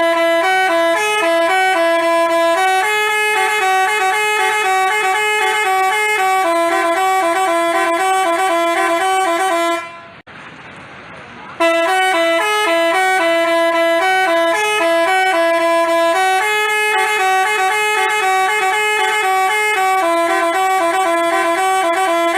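Telolet basuri multi-tone horn playing a tune of stepped, held notes. It stops about ten seconds in for a second and a half, then starts the tune again.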